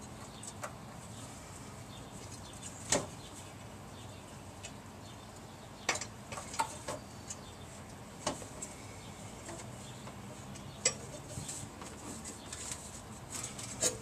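Sparse, irregular metallic clicks and clinks of hand tools on the exhaust and heat-shield fasteners under a car, as nuts are worked loose.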